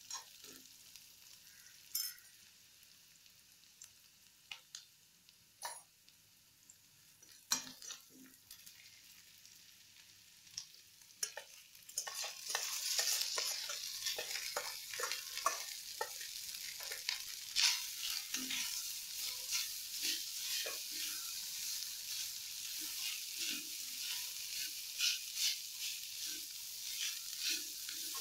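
Metal spatula tapping and scraping in a kadhai of peanuts, onion and green chillies frying in oil. About twelve seconds in, cooked rice goes into the pan and the sizzle becomes much louder, with quick scrapes and clicks as it is stirred and fried.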